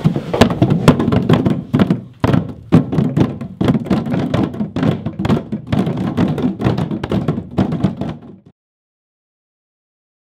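Hands drumming on painted drums: a fast, uneven run of slaps and knocks that stops dead about eight and a half seconds in.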